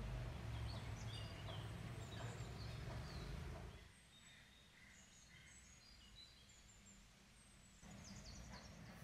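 Faint birds chirping in short scattered calls over a low steady hum; the hum drops away about four seconds in, leaving the chirps over near-quiet background.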